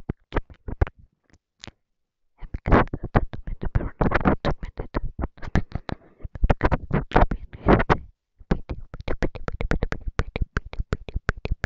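ASMR mouth sounds: rapid wet clicks and smacks of the lips and tongue in dense runs, pausing briefly about two seconds in and again about eight seconds in.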